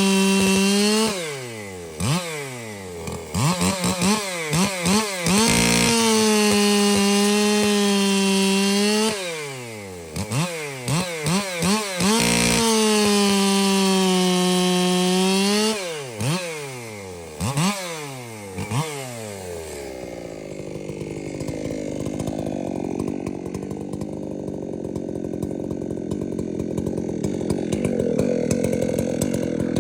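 Echo CS-7310P two-stroke chainsaw held at full throttle through three test cuts. Its pitch sags a little under load in each cut, and there are quick throttle blips between the cuts. For the last ten seconds it drops to a lower, quieter running.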